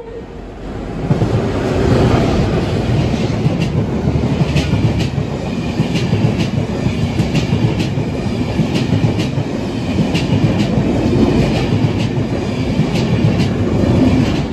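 Enterprise passenger train (Class 201 diesel locomotive 207 with driving trailer 9004) passing along the platform: a loud, steady rumble that builds over the first second or two. Over it run repeated sharp clicks of the wheels going over rail joints.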